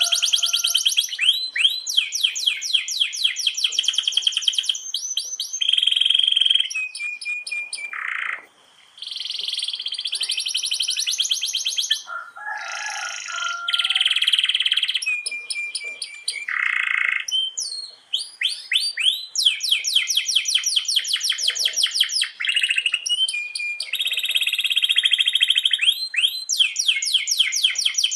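Domestic canary singing continuously in long rolls: fast runs of rapidly repeated high notes and rising trills, with a brief break about nine seconds in.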